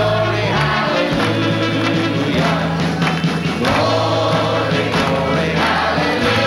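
Live band music with a choir-like sung chorus over held bass notes.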